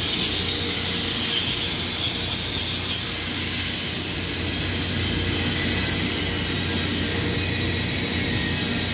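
Grinding on steel, sparks flying, that eases off about three seconds in, leaving a steady hum of workshop machinery.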